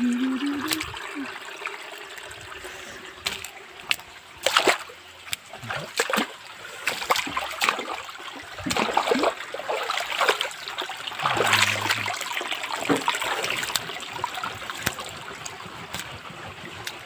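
Shallow stream water trickling and running over rocks, with irregular splashes as someone wades through it.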